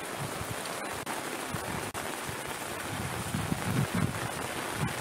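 Steady hiss of rain falling, with wind buffeting the microphone in uneven low rumbles that grow stronger after the first second or so.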